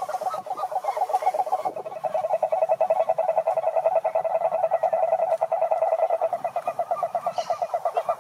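Frogs calling: a fast, unbroken run of pulses held at one pitch, with other frog calls overlapping it.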